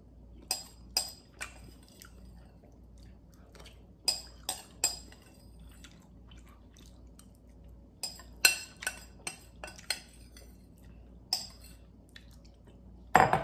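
Metal spoon scraping and clinking against a glass bowl: sharp clinks in small groups with quiet between, a denser run about two-thirds of the way through, as the bowl is scraped out.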